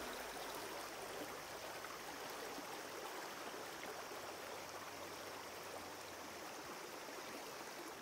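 Shallow stream running over pebbles: a faint, steady babble of water.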